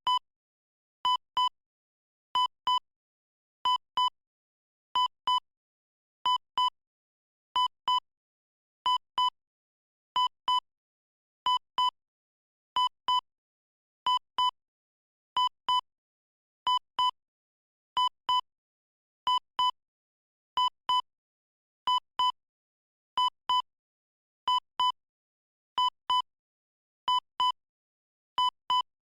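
Heart monitor beep sound effect: short electronic beeps in pairs, one pair about every 1.3 seconds, with silence between.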